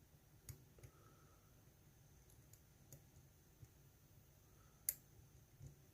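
Faint, sparse clicks of a lock pick working the pin stack of a GEGE euro cylinder under tension, with one sharper click about five seconds in.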